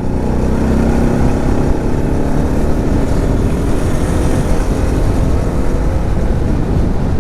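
Bajaj Pulsar NS200's single-cylinder engine running steadily while the motorcycle is ridden along a road, with heavy wind rush over the microphone.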